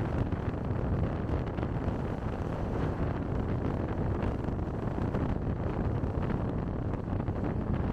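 Steady low rumble of a car driving: road and engine noise, with wind on the microphone.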